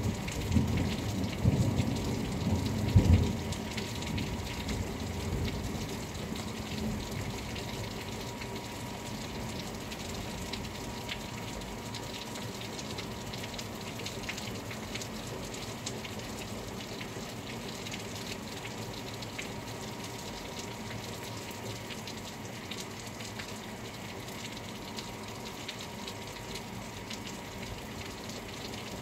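Steady rain falling, with a low rumble of thunder in the first few seconds that swells twice and fades out by about six seconds in.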